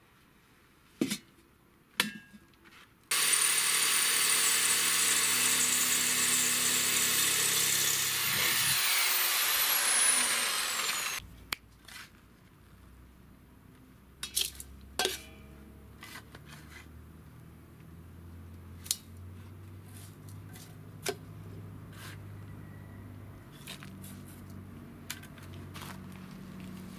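A power tool runs loudly for about eight seconds with a high whine that falls near the end, then cuts off abruptly. It is preceded by two knocks of a metal gas bottle being handled. Afterwards a hand trowel scrapes and drops soil with light knocks.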